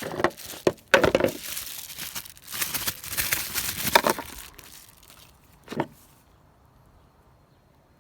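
Plastic packaging crinkling and rustling in irregular bursts as a new relay is unwrapped, then a single click near the end.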